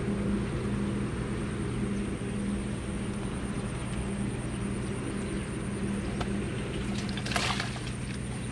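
A steady low engine drone with a slight regular pulse, and a brief rustle about seven seconds in.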